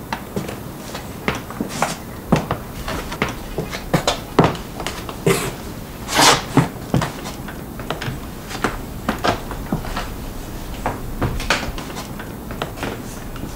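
Irregular small knocks, clicks and clatters of someone moving about a room and handling household things, with a longer, louder rush of noise about six seconds in.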